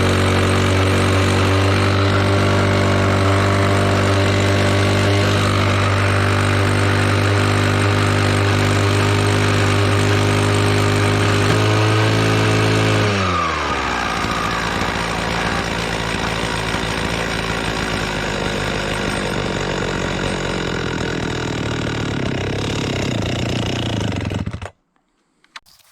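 Husqvarna 240R brushcutter's two-stroke engine, not yet given its carburettor rebuild, running steadily at a high, even pitch. About 13 seconds in the revs fall away, and it runs rough and uneven until it cuts out suddenly near the end.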